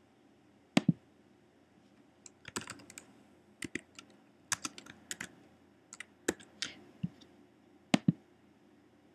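Typing on a computer keyboard, a short run of keystrokes, framed by a sharp click about a second in and another near the end, typical of a mouse button pressed and released.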